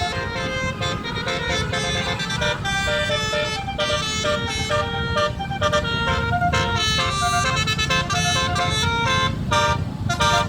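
Telolet bus horn playing a rapid melody of short multi-tone notes, over the low rumble of the bus's engine.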